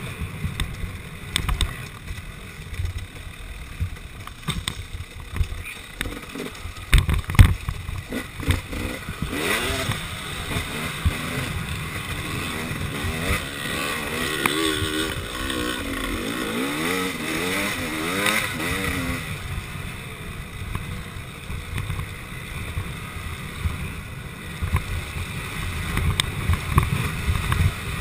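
KTM 300 XC two-stroke dirt bike engine running and revving up and down as it is ridden along a rough trail, with sharp knocks from the bike over bumps, the loudest about seven seconds in.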